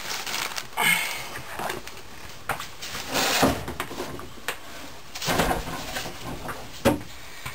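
Workshop handling sounds: several separate knocks and clunks with rustling, as a plastic tub holding a removed transmission oil pump is carried off and set down among tools and papers on a workbench; the sharpest knock comes near the end.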